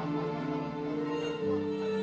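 Background music of long held notes; a lower note comes in about one and a half seconds in.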